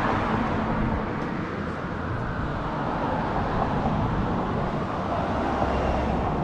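Steady outdoor background noise with a low rumble underneath.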